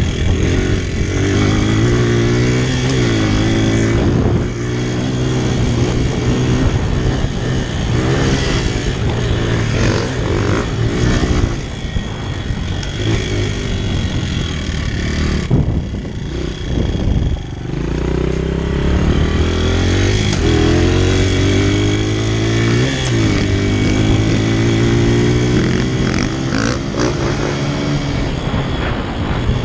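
Honda CRF100F dirt bike's four-stroke single-cylinder engine under riding load, its pitch repeatedly climbing and dropping as the throttle is worked through the gears. It eases off briefly a little past the middle, then picks up again.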